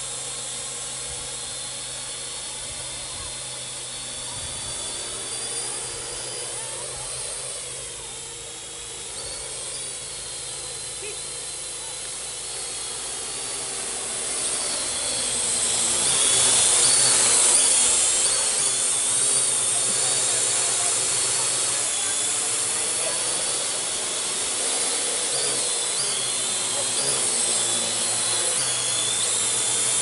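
Parrot AR.Drone 2.0 quadcopter's four electric motors and propellers whining in flight, the pitch sliding up and down with throttle changes. It gets louder around the middle as the drone comes close.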